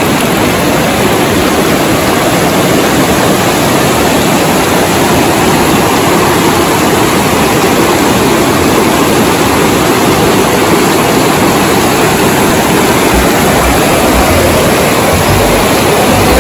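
Fast mountain river rushing over boulders: a loud, steady roar of white water.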